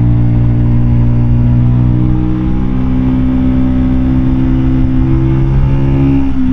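Keeway K-Light 125's small V-twin engine running at steady revs under way. Near the end the note breaks briefly and picks up again at a changed pitch.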